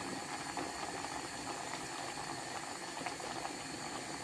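Beef simmering in a pan of liquid under a layer of freshly added vegetables: a steady bubbling hiss.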